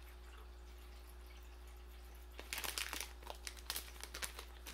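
Plastic sweet packet crinkling in the hands, a patter of short crackles starting about halfway through after a quiet stretch.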